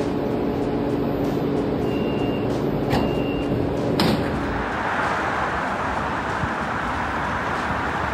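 Subway sliding doors closing over a steady low electrical hum: two short high warning beeps about two and three seconds in, then the doors shut with a sharp knock about four seconds in. After that, steady road traffic noise.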